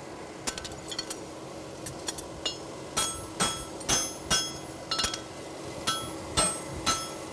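Hand hammer striking a steel horseshoe on an anvil as the sides of a toe clip are cleaned up. There are a few light taps in the first couple of seconds, then heavier, regular blows about two a second, each with a short metallic ring.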